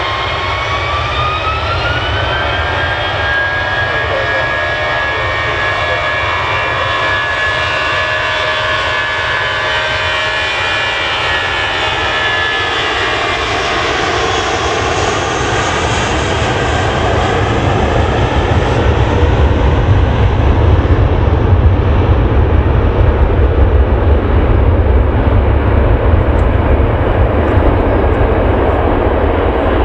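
Jet engines of a KLM Boeing 777 taxiing: a whine that rises over the first two or three seconds as the engines spool up, then holds steady over a deep rumble. The rumble grows louder from about two-thirds of the way in.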